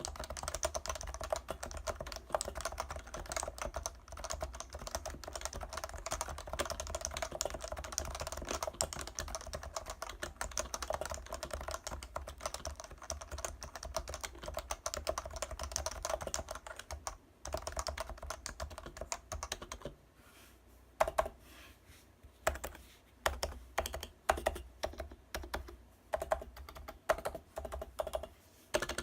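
Typing on a Leopold FC660C keyboard with Topre switches: fast continuous keystrokes, then after a short pause about two-thirds of the way through, slower separate key presses, a few of them louder.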